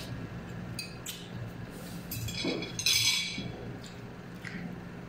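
Metal forks clinking and scraping against ceramic bowls as instant noodles are eaten, with slurping; a few short clinks and bursts, the loudest about three seconds in.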